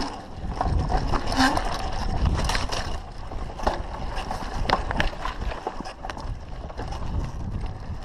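Mountain bike riding fast downhill on rough forest singletrack: a steady rumble of wind on the microphone and tyres on dirt, with frequent sharp knocks and rattles as the bike jolts over rocks and roots.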